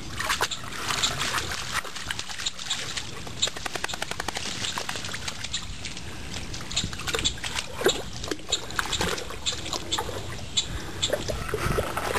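Water splashing and trickling, with many irregular sharp clicks and a quick run of even clicks a few seconds in.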